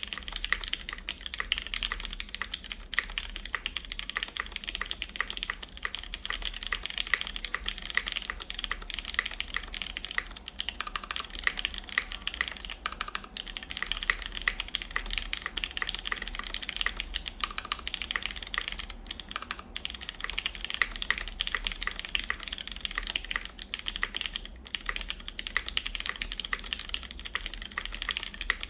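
Continuous typing on a CannonKeys Blaine v2 SE mechanical keyboard in its o-ring mount, with lubed Cherry MX Brown tactile switches, a full aluminum plate and GMK keycaps: a steady, dense stream of keystroke clicks with no pauses.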